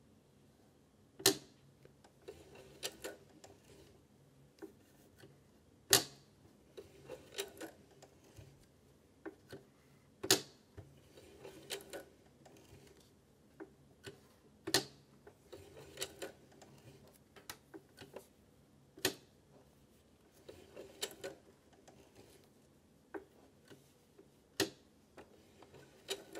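Singer Heavy Duty 4432 sewing machine worked slowly by its hand wheel, stitch by stitch through leather around a corner. Its mechanism gives a sharp click every four to five seconds, with fainter clicks and rattles between.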